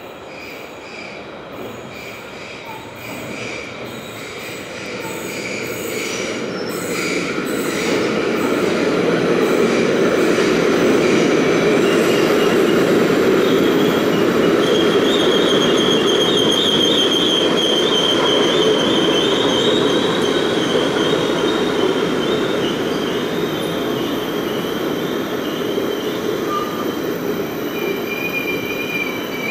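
NS ICMm Koploper electric trainset pulling into an underground station platform. Its rumble grows louder as it approaches, and a high-pitched squeal sets in about halfway through as it slows alongside the platform.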